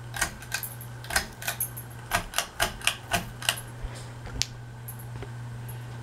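Tatung Hugger ceiling fan motor running with a steady low buzz. Over the first four and a half seconds comes a run of irregular sharp clicks, louder than the hum.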